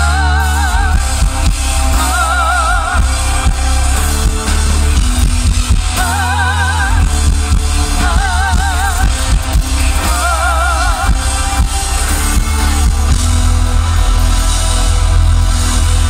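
Live pop band playing loud through a festival PA, with heavy bass and drums. A short wavering high melody phrase comes back about every two seconds for the first ten seconds or so.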